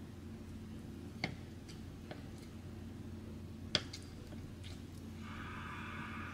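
Kitchen knife slicing through a block of Spam on a wooden cutting board, the blade knocking the board in a few sharp, sparse clicks, the loudest about halfway through. A steady low hum runs underneath, and a short hissing noise comes in near the end.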